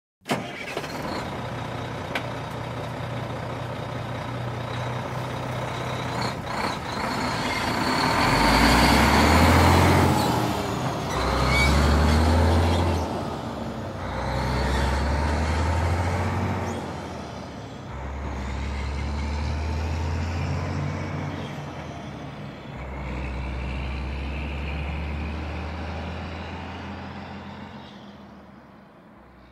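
A truck's engine starts with a sudden catch and idles. About eight seconds in it pulls away with a loud burst of hiss, then revs up and drops back through about five gear changes. A faint high squeak rises and falls over it while it drives.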